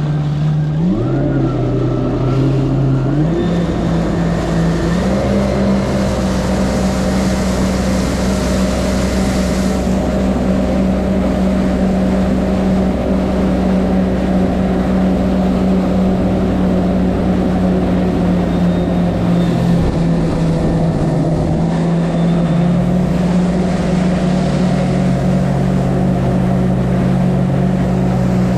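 Yamaha VX110 jet ski's four-stroke engine running under power. Its pitch climbs in a few steps over the first few seconds, then holds as a steady drone, with small dips and recoveries about two-thirds of the way through.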